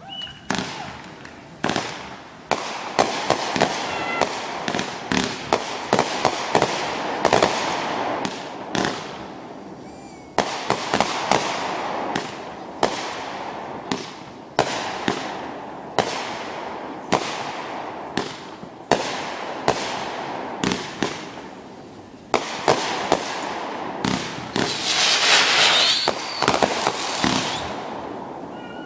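Fireworks show: a rapid run of sharp bangs from bursting shells, many following each other less than a second apart. Near the end there is a dense crackling burst.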